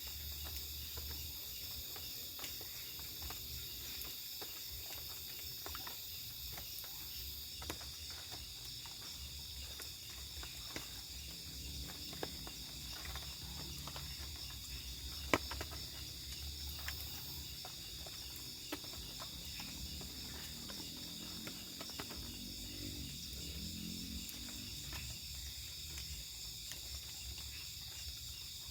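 Steady night chorus of crickets and other insects, with scattered small clicks and knocks and one sharper click about halfway through.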